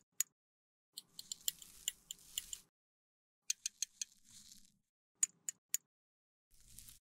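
Metal spatula scooping loose shimmery makeup powder from a glass beaker and tipping it into a metal pan: sharp clinks and ticks of metal on glass and metal over the soft scraping rustle of the powder, in two spells of scooping, then three separate clicks.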